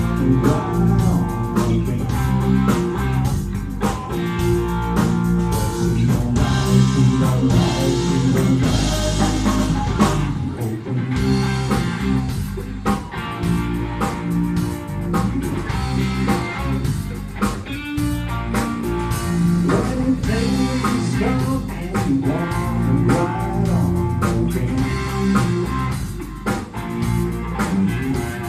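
Live band playing: electric guitar, bass guitar and drum kit, with a woman singing.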